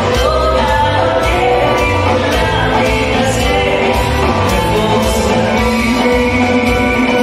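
Live Greek song: a woman singing with a band of bouzouki, electric bass, drum kit and keyboard.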